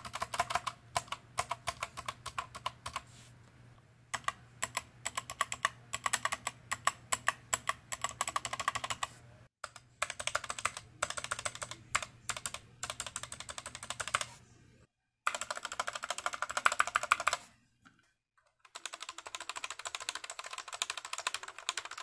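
Stabilized keys of an Epomaker Skyloong SK61 60% keyboard (space bar, then Enter and Shift, then Backspace) pressed rapidly over and over in several runs of clicks broken by short pauses. The keys clack and rattle from the board's clip-on stabilizers, which are a bit rattly.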